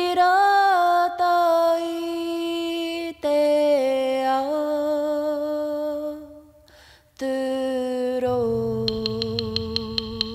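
A solo voice sings a Māori waiata without accompaniment, in long held notes over three phrases, each lower than the last. Near the end a low drone and a fast clicking percussion come in.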